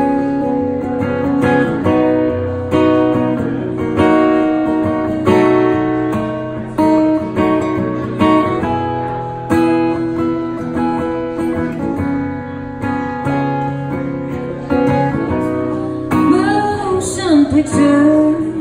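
Solo Martin acoustic guitar playing a slow, even pattern of strummed chords, each left to ring. About two seconds before the end, a woman's voice comes in, singing over the guitar.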